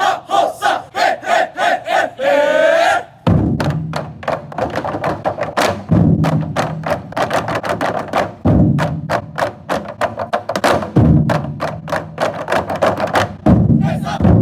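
Chinese festive drum ensemble playing in unison. First come quick, even clicking strokes of sticks on the drum rims or wood, then a rising shout about two and a half seconds in. After that the players strike the drumheads hard with rapid strokes, and a heavy boom lands about every two and a half seconds.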